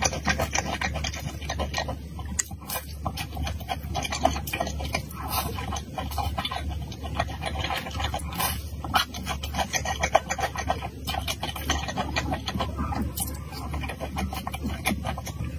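Close-miked chewing of fried eggplant: a dense, fast run of wet, crackly mouth clicks and squelches.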